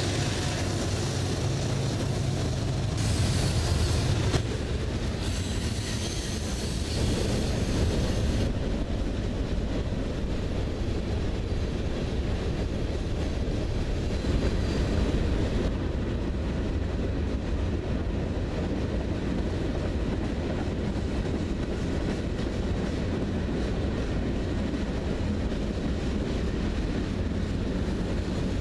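Freight train cars, autoracks and gondolas, rolling past: a steady rumble of steel wheels on rail. A brighter hiss on top drops away about eight seconds in.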